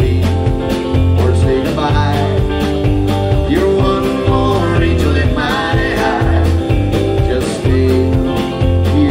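Live band playing a song: electric guitar over changing bass notes and a steady drum beat, with some bent guitar notes in the middle.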